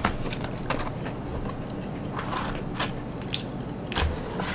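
Hands picking through pieces of fried chicken in paper-lined takeout boxes: scattered light rustles and small knocks, about half a dozen spread across a few seconds.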